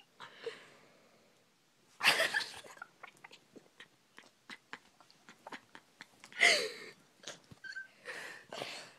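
Snoring: loud, noisy snores about two seconds in, again at about six and a half seconds, and near the end, with short faint clicks in between.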